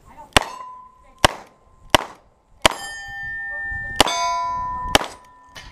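Six revolver shots, each followed by the ring of a steel target plate being hit. The shots come roughly one a second, with a longer pause before the fifth, and the last plates ring on after being struck.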